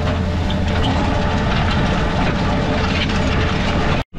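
Tractor engine running steadily with a loud, continuous mechanical rattle and clatter from the machinery it is working.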